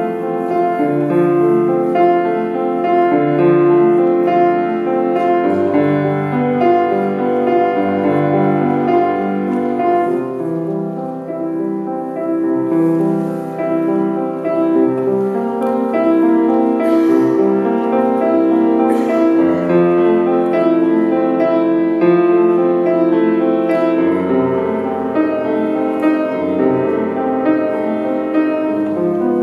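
Grand piano played solo: a continuous flow of notes over low bass notes that are held for a couple of seconds each.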